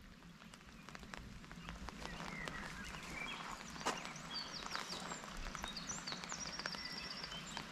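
Small songbirds chirping in short calls and sweeps, with a rapid trill near the end, over scattered light clicks like footsteps on a path.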